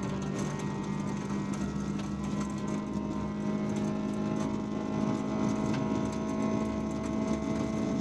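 VW Polo 1.4 16V four-cylinder rally engine, heard from inside the cabin, pulling hard at high revs in one gear, its pitch edging up over the last few seconds. Gravel ticks and rattles against the car's underside throughout.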